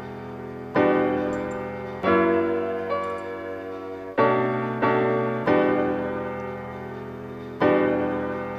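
Background piano music: slow chords, each struck and left to ring and fade before the next.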